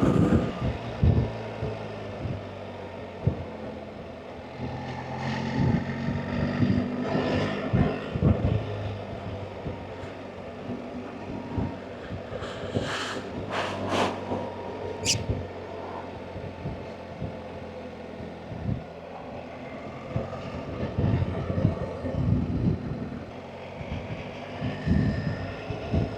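BMW R 1300 GS Adventure's boxer-twin engine running under way, its revs rising and falling as the rider changes speed.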